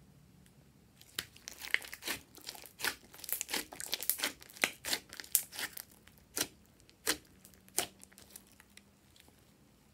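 Glossy slime being squeezed and kneaded by hand, giving a fast run of sharp wet pops and clicks from air pockets squashed in it. The pops start about a second in, come thickest in the middle and die away near the end.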